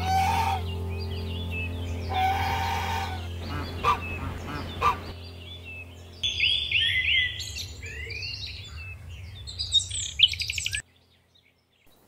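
Domestic goose honking: two loud calls in the first three seconds, then a couple of short sharp notes. From about halfway, small birds chirp in quick, high runs until the sound cuts off near the end. A steady low hum lies underneath throughout.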